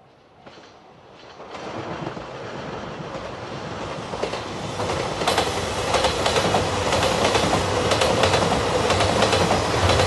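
A JR Shikoku 2700 series diesel limited express train approaches and passes close by, its sound building steadily over the first few seconds. From about five seconds in, its wheels clack rhythmically over the rail joints over the steady running of the train.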